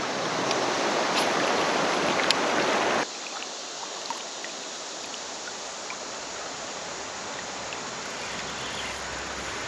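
Steady rush of fast river current around a kayak. It cuts off abruptly about three seconds in to a much quieter, steady hiss with a few faint ticks.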